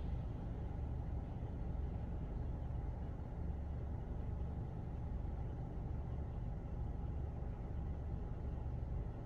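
Steady low rumble and hum of a PDQ LaserWash 360 touchless car wash, heard muffled from inside the car's cabin while soap foam sits on the windshield between spray passes.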